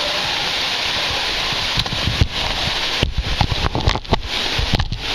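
Waterfall pouring: a loud, steady rush of falling water. From about two seconds in, irregular low thumps on the microphone break into it.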